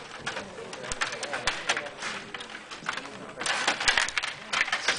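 Stiga table hockey game in play: rapid, irregular clicking and rattling of the rods and plastic players, with sharp knocks of the puck. There is a dense flurry about three and a half seconds in.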